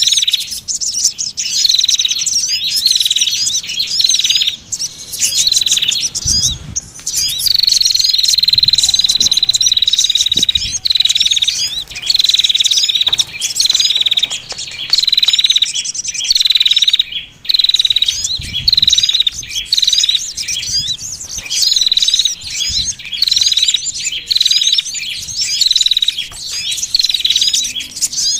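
Bird-lure recording of a noisy chorus of small songbirds: dense high chirps and trills, with a call that slides down into a held note repeating about once a second. About eight seconds in, one note is held for around three seconds.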